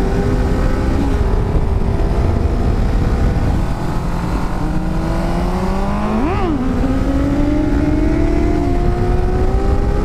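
Motorcycle engine running under way, its pitch dropping at a gear change about a second in, then climbing steadily as it accelerates, with a quick sharp rev and drop a little past halfway, over steady wind and road noise.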